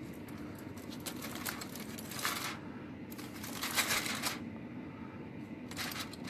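Aluminium foil crinkling as it is peeled back off a roasting pan, in three rustling bursts over a steady low hum.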